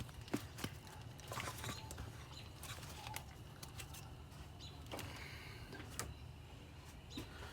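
Scattered light clicks and taps of metal parts and tools being handled while a thermostat and its housing are fitted onto the engine, over a low steady hum.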